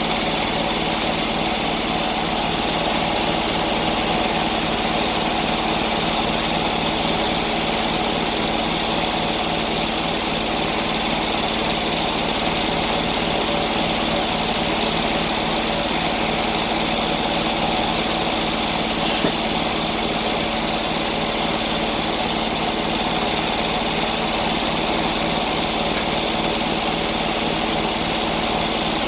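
A sawmill's engine running steadily at an even speed.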